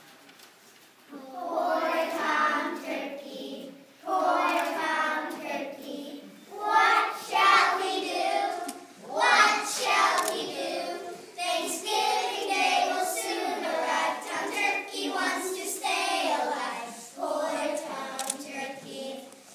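A group of young children singing a song together in phrases, starting about a second in.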